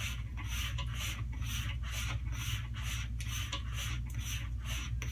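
Straight razor being stropped on a hanging strop: a swish for each stroke, about two strokes a second, with a light click between strokes as the blade turns over.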